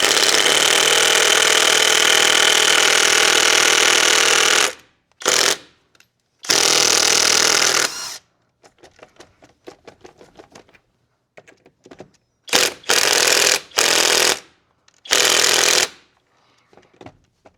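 Kobalt impact wrench hammering on a wheel's lug nuts, taking them off. It runs in one long burst of about five seconds, then several shorter bursts, with faint clicks and knocks between them.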